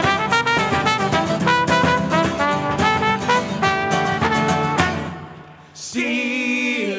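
Live band playing an up-tempo instrumental passage, a trumpet melody over strummed acoustic guitar and mandolin with bass drum strokes. The playing fades out about five seconds in. Near the end several men's voices start singing together unaccompanied.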